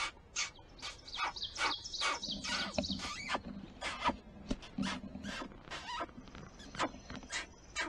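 Wild turkeys calling: a run of short, raspy yelps and clucks, coming several a second at times.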